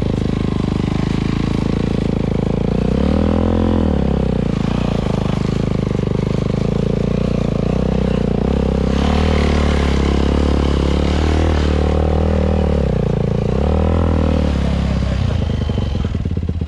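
Yamaha four-stroke single-cylinder dirt bike engine running under light throttle, revving up and dropping back three times (about three seconds in, from about nine to twelve seconds, and about fourteen seconds in). The throttle is kept gentle to hold traction on snow while the bike is pushed uphill. It eases back toward idle near the end.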